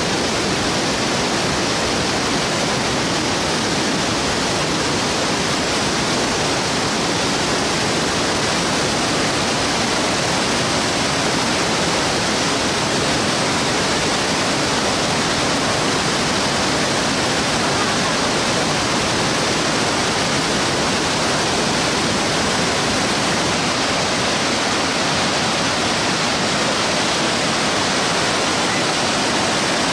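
Waterfall: rushing water making a steady, even noise with no breaks.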